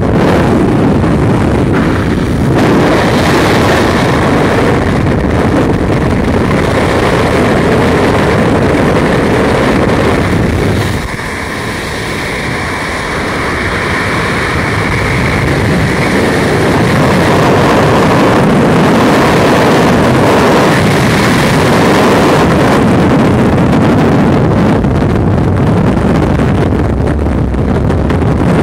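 Loud, steady rush of freefall wind on the camera's microphone, starting as the skydiver leaves the aircraft door and dropping briefly about eleven seconds in.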